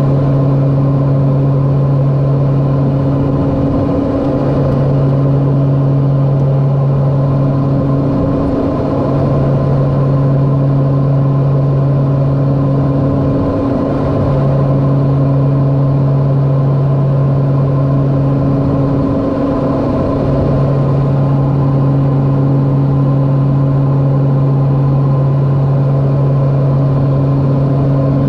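LET L-410 Turbolet's twin turboprop engines and propellers droning steadily in flight, heard inside the cockpit. A deep steady hum dips briefly about every five seconds.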